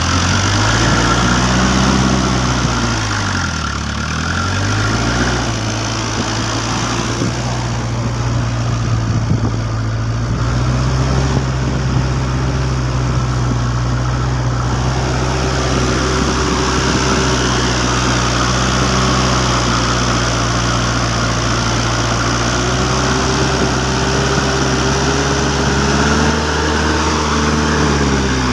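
Engine of a homemade farm truck running continuously. Its pitch rises and falls over the first few seconds and again near the end, and holds fairly steady in between.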